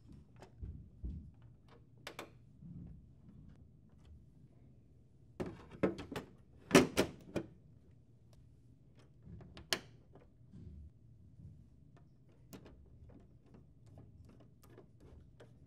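Plastic cover panel being handled and fitted against the back of a Lexmark CS920/CX920-series printer: a cluster of sharp plastic knocks and clacks about six to seven seconds in, and another single knock a few seconds later. Lighter clicks and taps come from handling the panel, screwdriver and screws.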